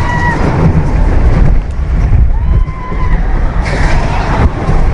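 Gemini roller coaster train running at speed: a loud, steady rush and rumble of wheels and wind, with riders screaming twice.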